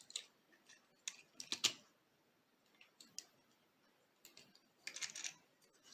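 Scattered faint plastic clicks and snaps of the Transformers Animated Deluxe Ratchet figure's parts being folded and moved by hand during transformation, a cluster about a second and a half in and another near the end.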